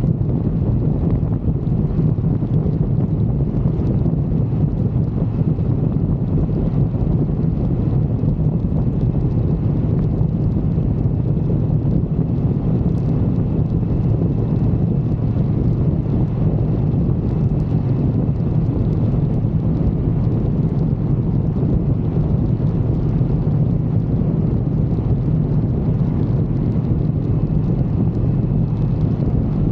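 Wind rushing over the microphone of a moving motorcycle, over a constant low engine drone, unchanging throughout.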